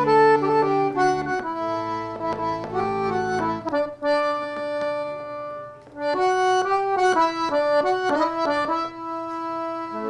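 Philharmonic piano accordion playing solo the introduction of a forró song: a melody of held notes over bass notes for the first few seconds, then the tune alone. The playing dips to a short pause about five and a half seconds in and then carries on.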